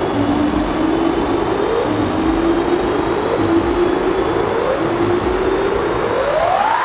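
Sci-fi spacecraft rocket launcher sound effect: a loud, steady rushing noise under a low tone that climbs a little and drops back about every second and a half. Near the end the tone starts a steep rising sweep.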